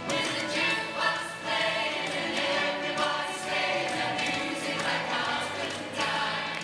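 A choir singing a 1970s pop song live in many voices, over instrumental backing with a steady percussive beat.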